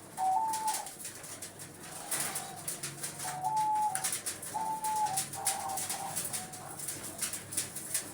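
Pied diamond doves cooing, a run of short calls each stepping between two close pitches, with a scatter of light clicks and rustles from the birds in their cages.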